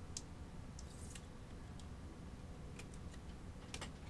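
Faint, scattered light ticks and clicks of trading cards and packs being handled, over a low steady hum.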